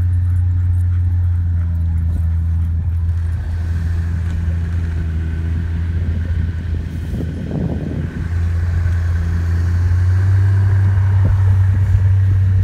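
Steady low rumble of a moving dog sled running over a packed snow trail, with a brief rustling swell about seven seconds in.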